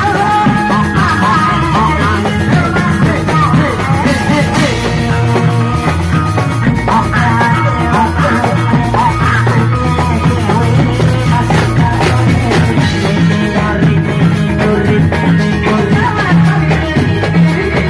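Loud live Reog Indramayu accompaniment played through loudspeakers: a drum-driven beat over a steady bass, with a wavering melody line above it.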